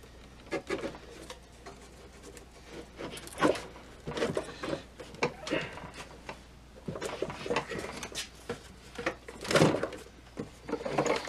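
Irregular knocks, scrapes and rubbing as a Zenith Transoceanic portable radio's cabinet is handled and its chassis worked loose, the chassis hanging up on the broken power-cord reel. The loudest knock comes near the end.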